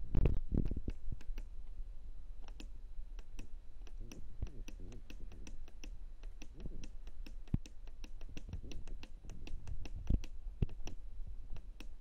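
Rapid, repeated clicks of the washing machine's control-panel arrow button being pressed over and over, several a second, as the menu is scrolled. A low thump sounds right at the start.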